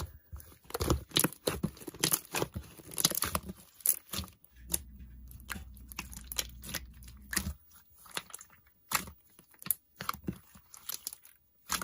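Irregular crackling clicks and rustling, like handling noise. A low steady hum joins them for about three seconds in the middle.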